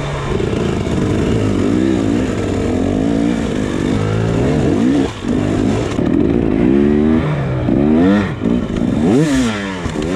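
Dirt bike engine being ridden hard, its revs climbing and falling repeatedly as the throttle is worked, with a few brief drops in revs.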